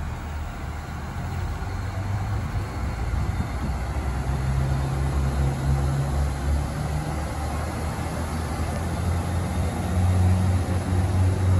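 Northern Ireland Railways Class 3000 diesel multiple unit pulling away from the platform, its diesel engines working under power with a low note that shifts in pitch partway through as it accelerates.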